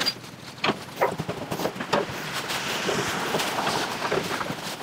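Metal clanks and knocks from a radiator and fan shroud being handled and fitted onto a tractor's front frame: five sharp knocks in the first two seconds, then a couple of seconds of steady scraping and rustling.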